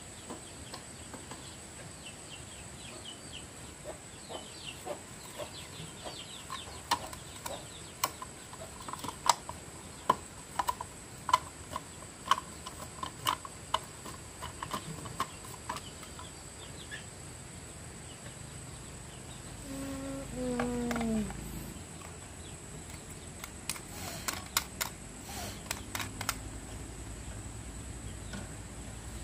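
A steady high insect buzz throughout, over scattered sharp clicks and taps, and a short falling animal call about twenty seconds in.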